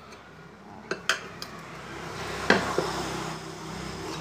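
Steel tire lever clicking against a motorcycle alloy rim as a tubeless tire's bead is levered over the rim edge. A few sharp metal clicks, then a longer scraping rub near the end as the bead slides on.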